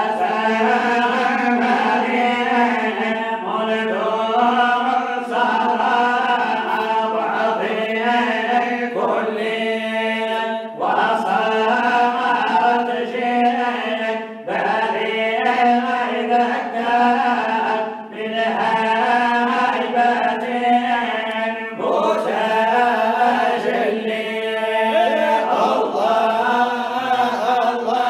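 Men's voices chanting a Sufi samaa qasida, unaccompanied, in long melodic phrases over a steady low note held beneath. The phrases break off briefly every few seconds.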